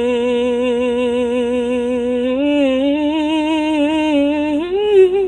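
A man singing unaccompanied, holding a long note with vibrato on the word "me", then sliding up in pitch about two and a half seconds in and again near the end.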